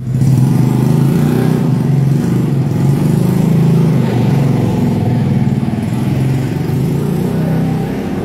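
Nissan X-Trail's engine idling steadily, a constant low hum with no revving.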